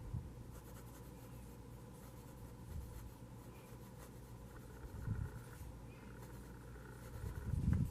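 Lamy Safari fountain pen with a fine nib writing on Leuchtturm1917 notebook paper: faint, soft scratching of the nib across the page. A few low muffled bumps come and go, the loudest near the end.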